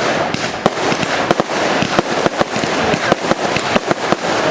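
Fireworks display going off in quick succession: many sharp, irregular bangs and cracks, several a second, over a continuous crackling hiss.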